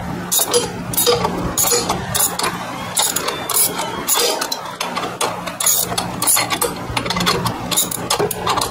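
Hand ratchet on a 14 mm socket clicking in repeated, uneven strokes about twice a second, as it undoes a swing-arm bolt.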